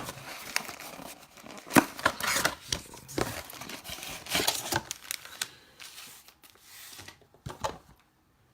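Crinkling and rustling with short sharp clicks and taps as objects are handled at close range, busy at first and dying away to near quiet near the end.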